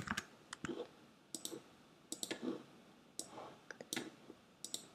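Computer mouse and keyboard clicking: a string of short, irregular clicks, some in quick pairs.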